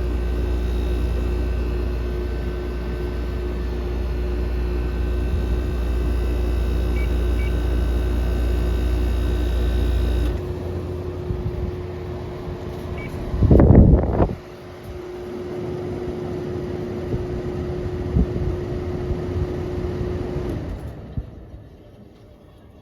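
2004 Daewoo DWC-054R 5,350 BTU window air conditioner shutting down: at first the compressor hums under the fan. About ten seconds in the compressor cuts out, leaving the fan running alone, with one loud clunk a few seconds later. The fan then stops about 21 seconds in and the sound dies away.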